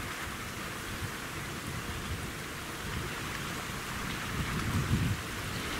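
Wind buffeting the microphone in uneven low gusts, strongest near the end, over a steady hiss of small waves lapping on a sandy beach.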